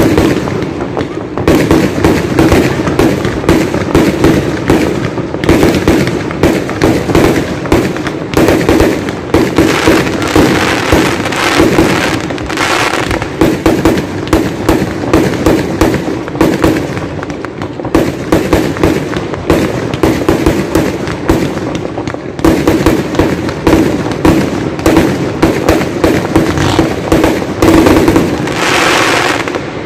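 Fireworks going off in a continuous barrage of bangs and crackles, several a second, barely letting up.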